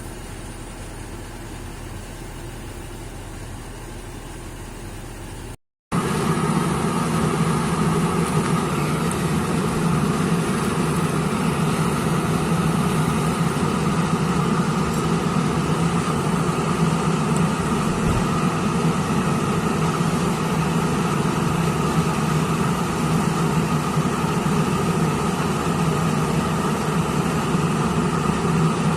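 A heavy machine's diesel engine running steadily. After a brief cut about six seconds in, it is much louder.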